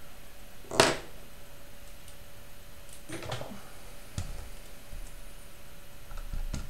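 Desk handling sounds as a pen is put aside: one sharp click about a second in, a brief rustle about three seconds in, and a run of light taps near the end.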